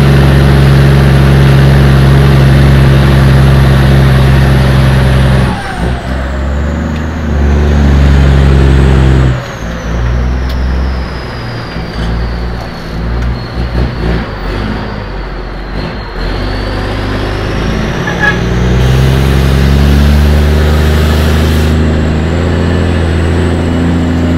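Road-vehicle engine running at a steady drone, dropping away about five seconds in, then climbing in pitch again as it accelerates near the end.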